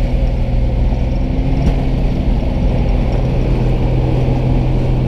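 Engine of a small propeller plane running steadily, heard from inside the cabin: a loud, even drone with a steady low tone.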